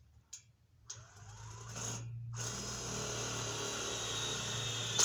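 Power drill running in two runs: a short one about a second in, a brief stop, then a longer steady run, with a low hum under a hissing whir.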